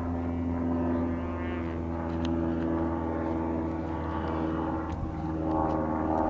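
Radio-controlled model airplane's engine and propeller running steadily in flight, the pitch shifting slightly near the end.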